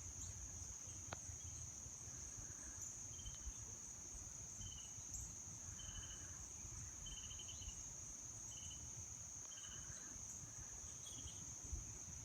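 Crickets and other night insects calling: a steady high-pitched trill throughout, with short pulsed chirps repeating about every one to one and a half seconds. Wind rumbles faintly on the microphone underneath.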